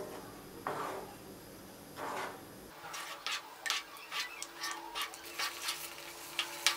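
Wooden spatula stirring thick semolina and water simmering in a non-stick kadai, scraping against the pan. From about three seconds in come irregular sharp clicks and taps, a few a second.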